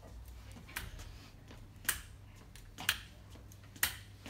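A metal walking crutch tapping on a hard floor during a slow walk: four sharp taps, about one a second.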